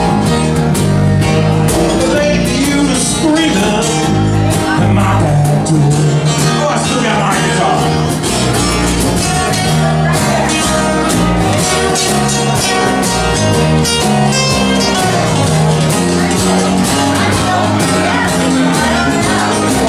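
Live blues band playing amplified: strummed acoustic guitars over electric bass and a steady hand-struck box-drum beat.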